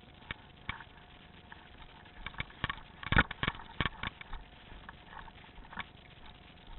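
A run of irregular sharp clicks and knocks, bunched together about two to four seconds in, the loudest a little after three seconds, over a faint steady hum.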